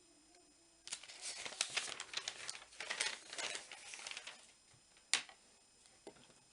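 Crinkling and rustling, irregular and crackly, for about three and a half seconds, then a single sharp click.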